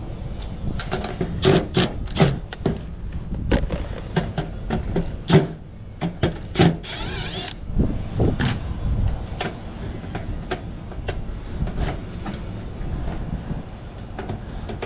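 Tools and metal parts clicking and knocking as a run capacitor is unfastened and taken out of an HVAC unit, with a short rasping sound about seven seconds in, over a steady low background rumble.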